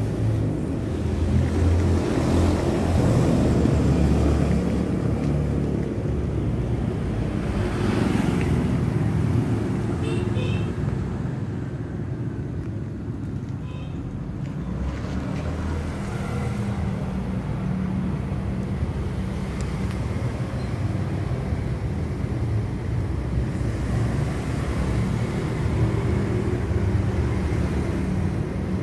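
Steady low outdoor rumble with no speech, with a few faint short high chirps about ten seconds in.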